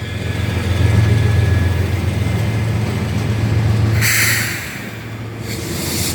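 Kansas City Southern diesel train running with a steady, loud low rumble. A short burst of high-pitched noise comes about four seconds in, after which the rumble drops a little.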